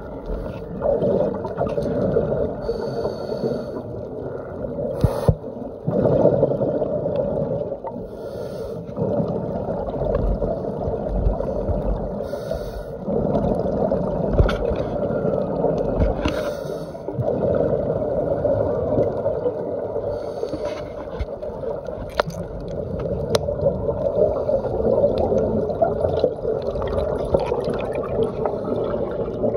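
Muffled underwater sound picked up through a phone's waterproof dive case: a continuous dull rush of water with bursts of scuba exhaust bubbles every few seconds.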